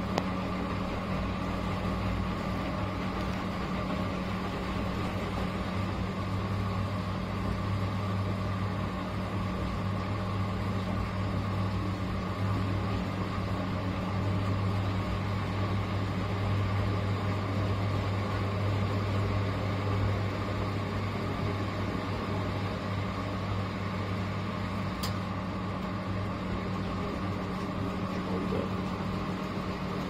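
Early-1970s V-Zug Adora 4 front-loading washing machine running its wash, the drum turning the laundry through the water with a steady motor hum.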